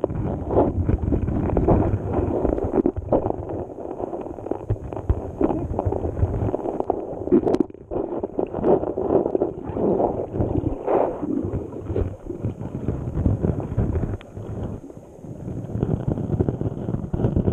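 Muffled rushing and gurgling of river current, recorded from inside a GoPro's waterproof housing lying underwater on a sandy riverbed. Irregular knocks and scrapes sound against the housing, with one sharp knock about seven and a half seconds in.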